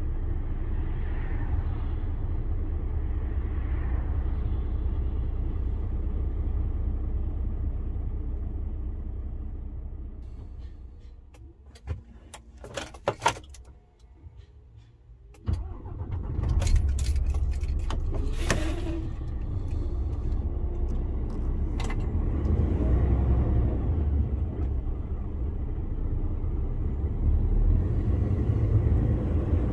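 Inside the cab of a DAF CF 480 lorry on the move: a steady low rumble of engine and road noise. About halfway through it fades to a quiet lull for a few seconds, with a few sharp clicks and rattles, and then comes back up to full level.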